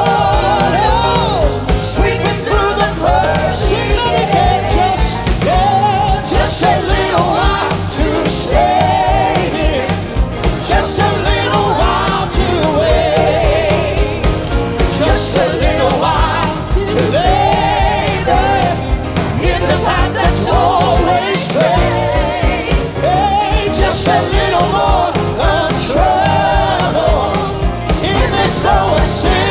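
Live gospel worship band and singers performing an upbeat song, with sung lines rising and falling over a steady drum beat.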